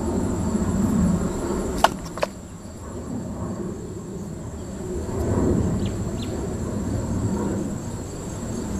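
Handling noise from engine parts and a handheld camera being moved, with two sharp clicks about two seconds in and two faint ticks later on. A faint steady high-pitched whine runs underneath.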